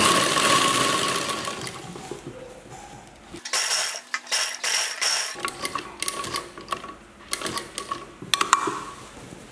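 Sewing machine stitching a seam through two layers of cloth, the outer fabric and its lining. It runs loudest at the start, easing off within a couple of seconds, then runs again in short spurts with clicks of the mechanism between.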